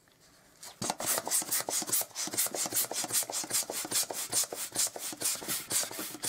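Hand balloon pump worked in quick, even strokes, each stroke a short rasping rush of air, inflating a long 260 modelling balloon. The pumping starts about a second in.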